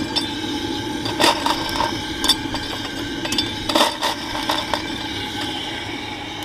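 Sharp metallic clinks and knocks, about half a dozen scattered through, over a steady mechanical hum with a few held tones, aboard a ride-on 7.25-inch gauge model steam locomotive.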